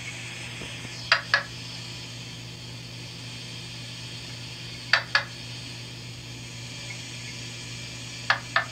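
Mink frog calling: three double knocks, each pair of short clucks about a quarter second apart, coming every three and a half seconds or so, over a steady low hum and hiss.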